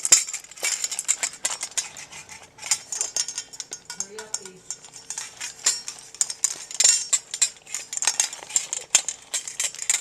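English bulldog puppy eating fast from his food bowl: a quick, irregular clatter of food and teeth knocking against the bowl as he gulps his meal down.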